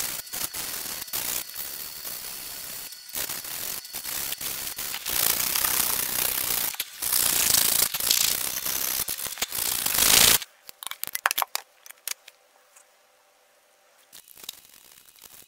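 A hand tool scraping a wooden staff in rapid, rough strokes, taking off bark and surface wood. It stops abruptly about ten seconds in, leaving a few faint clicks and taps.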